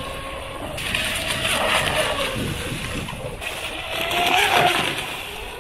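Pro Boat UL-19 RC hydroplane running at speed across the water, its brushless electric motor whining over the hiss of spray, swelling twice as it passes.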